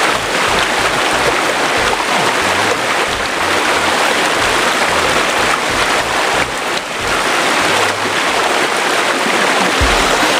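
Fast-flowing river rushing over rocks, a steady loud rush of water.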